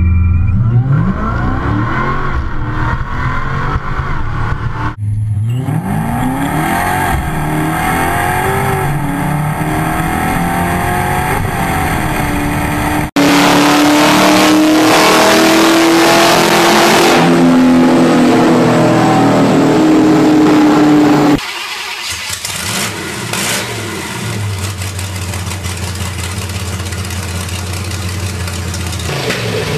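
Loud tuned car engines in quick succession. First a 1000 hp Chrysler 300C revs hard, its note rising and falling. Then an engine holds a long, loud, steady high-rev run whose pitch slowly climbs before it cuts off, and finally a carbureted engine with no bodywork revs in bursts.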